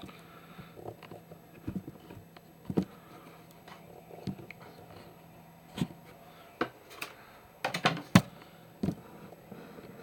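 Scattered knocks and clicks of a camera being handled and moved, one every second or so, with a quick cluster of the loudest about eight seconds in. A faint steady hum fades out about halfway through.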